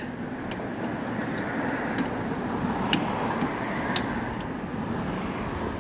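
Steady outdoor rushing noise, with a handful of light clicks and taps as a refrigeration gauge manifold and its hoses are handled in a plastic bucket.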